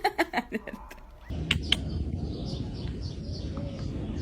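Kitten giving faint, short, high squeaking mews over a steady background hiss, with a couple of sharp clicks.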